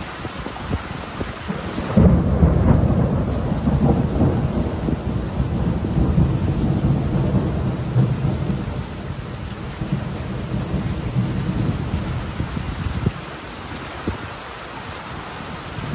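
Heavy tropical rain falling steadily, with a long roll of thunder that breaks in suddenly about two seconds in, rumbles for roughly eleven seconds and then dies away.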